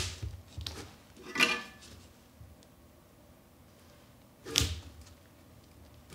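Handling noises from gloved hands working a wiper strip into a steel way cover's track: a short scraping rustle about a second and a half in and a brief clunk of the sheet metal about four and a half seconds in, with faint ticks between.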